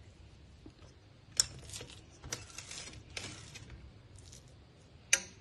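Steel spoon clinking and scraping against a stainless steel plate of sesame-jaggery ladoo mixture: a sharp clink about a second and a half in, scraping in the middle, and another sharp clink near the end.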